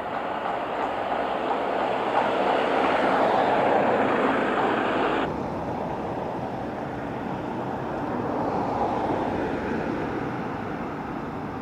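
Steady outdoor street traffic noise as a horse-drawn carriage and cars roll past. About five seconds in the sound changes abruptly to a softer steady rush.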